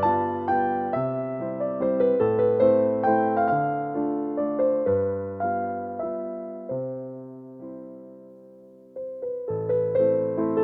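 Background music: a solo electric piano playing a gentle melody over chords, fading to a near pause about eight seconds in before a new phrase begins.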